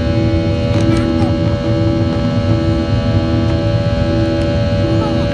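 Boeing 737-800 engine noise heard inside the cabin from a rear seat during the climb after takeoff: a loud, steady drone and rumble with several steady hum tones, one of which pulses on and off roughly once a second.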